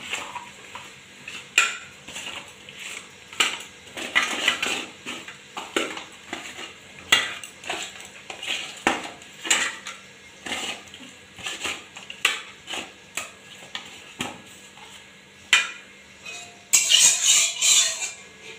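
Irregular clinks and scrapes of hands and pieces of rohu fish against a stainless steel plate as salt and turmeric are rubbed in, with a louder run of clattering near the end as the plate is handled.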